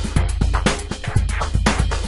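Electronic music with a steady drum-machine beat, about two beats a second, over a heavy bass.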